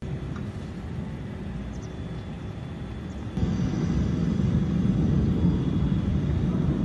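Missile explosion hitting a building: a low rumble that jumps abruptly louder a little over three seconds in and keeps rolling on.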